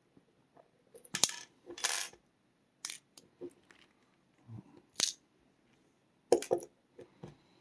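Small metal lock parts clinking and tapping against a hard surface: about six short, sharp metallic clicks at irregular intervals as the cylinder's pieces are handled.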